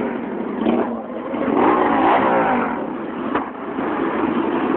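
Motorcycles riding past close by, their engines running, with one engine note rising and falling in pitch as it goes by loudest about two seconds in.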